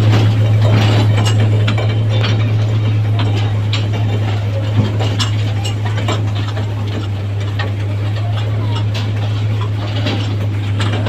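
Small amusement toy train running: a steady low hum with irregular rattling clicks from the carriages.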